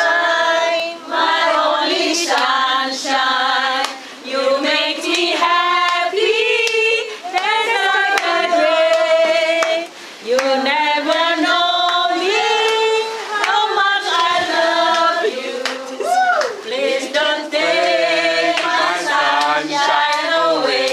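A group of men and women singing a song together, with held notes and short breaks between phrases.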